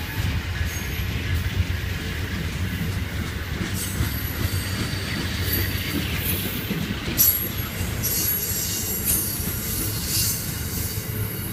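Amtrak passenger train cars rolling past: a steady low rumble of wheels on rail, with high-pitched wheel squeals from about seven seconds in.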